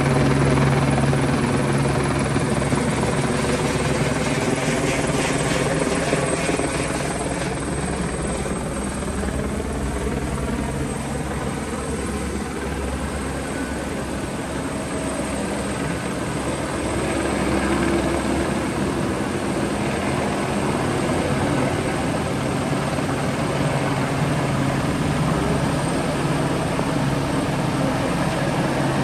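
Light single-rotor helicopter flying low overhead, its rotor and engine drone steady throughout. The drone fades a little midway and swells again as the helicopter circles back.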